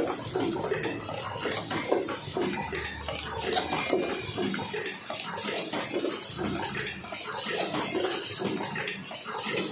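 Automatic cartoning machine running: a continuous clatter of its mechanism with a hiss of compressed air that swells and fades, broken by short dips every second or two.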